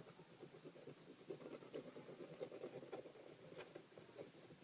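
Faint, rapid, irregular scrubbing strokes on a TV remote's circuit board as it is cleaned with rubbing alcohol.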